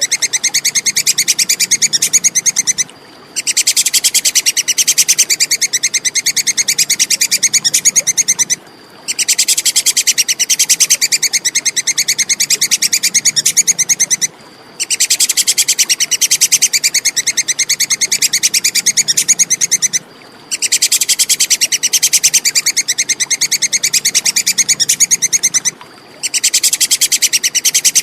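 Tree squirrel (tupai kekes) giving its chattering 'kekes' call: a rapid, even run of sharp high 'kek' notes in long phrases of about five seconds, broken by short pauses, five times over.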